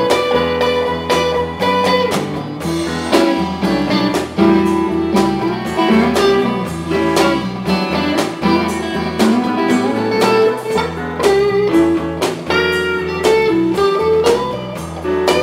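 Live blues band playing an instrumental passage: guitar over bass, drums and keyboards, with bending guitar notes.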